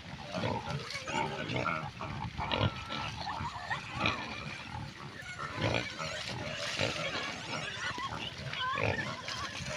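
Small pigs grunting and giving short high squeals, many brief calls overlapping in an irregular stream.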